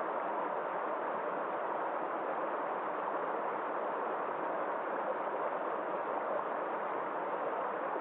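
A small mountain stream rushing over rocks in a cascade: a steady, unbroken noise of flowing water.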